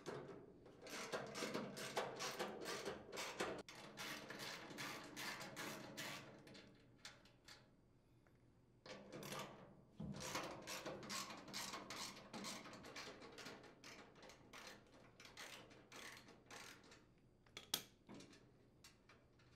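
Ratchet wrench with a half-inch socket clicking rapidly as it unthreads mounting nuts from a steel housing. The clicks come in two long runs with a pause between them, and there is one louder click near the end.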